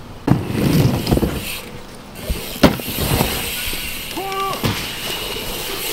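BMX bike riding a dirt jump: tyres rolling over the wooden ramp and dirt, with a sharp knock about two and a half seconds in.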